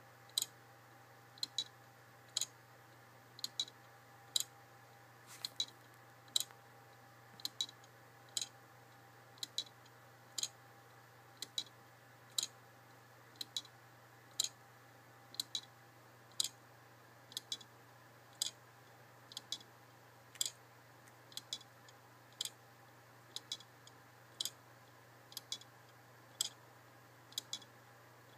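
Wooden grasshopper escapement clock ticking: a sharp click about once a second, some heard as a quick double click, as the escapement releases the escape wheel one tooth at a time.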